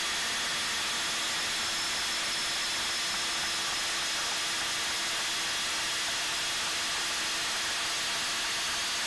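RIDGID 18V cordless compact band saw cutting through quarter-inch steel angle iron. It makes a steady hiss of the blade on the metal, with a constant low tone from the saw running at an even speed.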